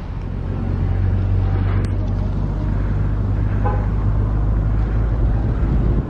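Steady low rumble of a motor vehicle engine in street traffic.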